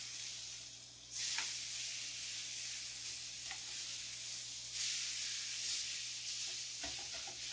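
Seasoned steak sizzling on a hot ridged grill pan as it is flipped with tongs. The sizzle swells about a second in and again near five seconds, as each turned side hits the hot pan.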